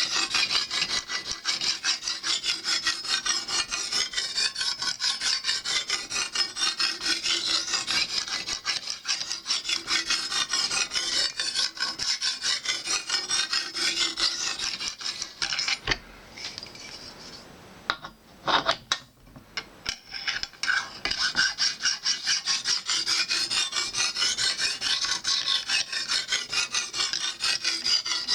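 Lansky sharpener's sapphire hone stroked rapidly up and down a clamped knife blade, a continuous rubbing rasp made of quick repeated strokes. It breaks off for a few seconds about two-thirds through, with a couple of short knocks, then the strokes start again.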